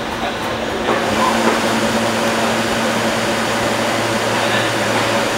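A stopped R160 subway car humming steadily from its air-conditioning and auxiliary electrical equipment, with a higher tone joining about a second in.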